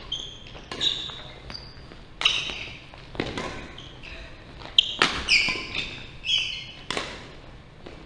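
Badminton doubles rally: rackets striking the shuttlecock in several sharp hits about a second apart, with court shoes squeaking briefly on the wooden floor between shots.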